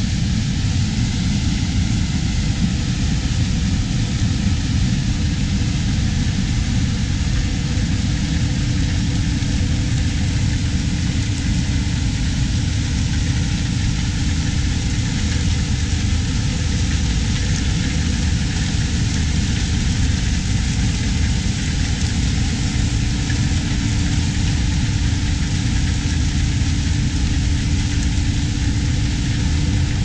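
New Holland CR9090 tracked combine running steadily under load while harvesting corn with its 16-row corn head: a continuous engine and machine drone with a steady low hum.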